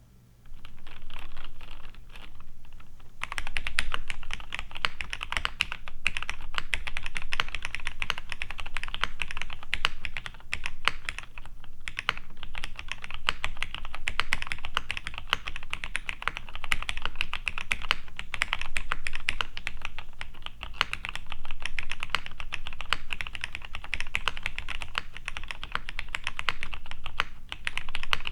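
Continuous rapid typing on a vintage plateless Cherry G80-1838HPU mechanical keyboard with lubed Cherry MX Black (Hyperglide) linear switches, GMK keycaps and foam dampening inside. The typing starts about half a second in, grows heavier and denser about three seconds in, and pauses briefly near twelve seconds.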